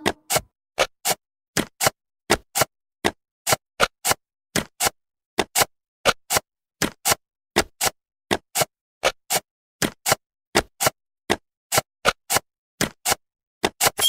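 Jigsaw-puzzle sound effect: a long run of short, dry clicks at an uneven pace of about three a second, with silence between, as puzzle pieces snap into place one after another.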